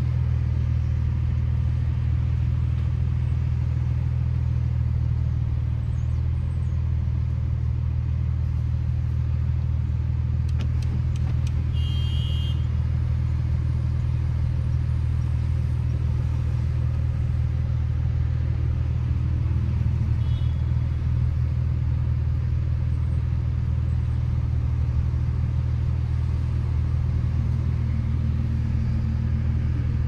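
Porsche 911's flat-six engine idling steadily, a low even hum heard from inside the cabin while the car stands in traffic. A brief faint high chirp sounds about twelve seconds in.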